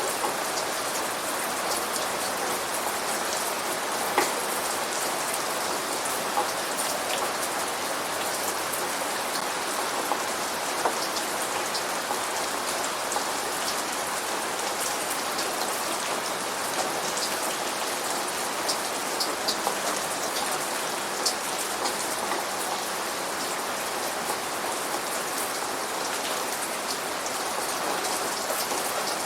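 Steady rain falling onto a surface, an even hiss with scattered louder drop splashes ticking through it.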